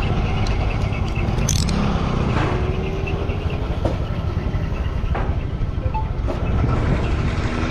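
Steady running noise of a moving motorcycle taxi, engine and road noise, heard from the pillion seat, with wind rumbling on the microphone.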